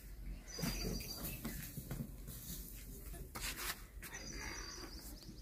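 Faint soft pats and rubbing from hands working roti dough in a metal plate beside a clay tandoor, with a few short knocks. Birds chirp twice, briefly, near the start and about four seconds in.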